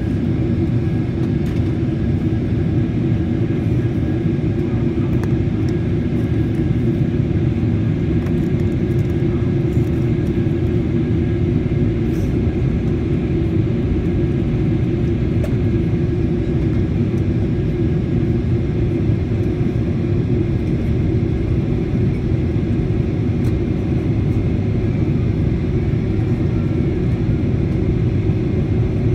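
Steady cabin roar of a Boeing 777-300ER descending toward landing, heard from a window seat: engine and airflow noise, an even low rumble that holds level throughout.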